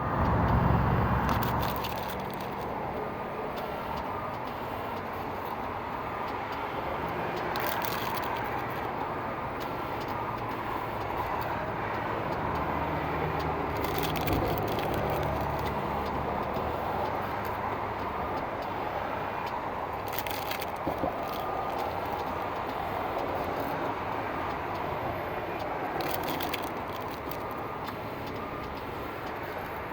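A receipt printer with a fault that persists after repair, giving a short burst of noise about every six seconds over a steady background noise.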